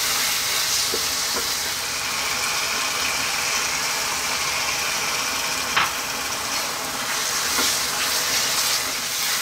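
Lentils and lamb frying in berbere sauce in a pan, a steady sizzle with a wooden spoon stirring through it. Water is splashed in partway through, as the stew is cooked down with small additions of water. There are a few short taps, the sharpest about six seconds in.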